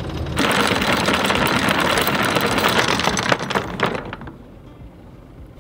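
Anchor chain paying out over the bow as the anchor is dropped, a dense, rapid metallic clatter that starts about half a second in and stops about four seconds in. The boat's engine runs low underneath.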